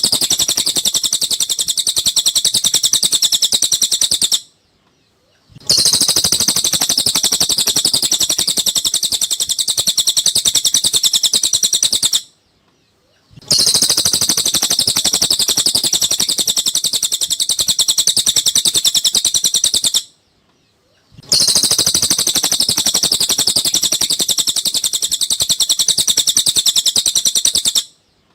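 Cililin song recording: rapid, high-pitched chattering chirps in stretches of about seven seconds, each cut off by about a second of silence, repeating evenly like a loop of bird song for masteran training.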